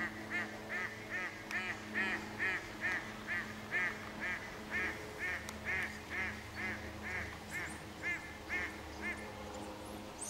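A bird calling over and over: about two dozen short, arched calls at a steady two to three a second, stopping about nine seconds in.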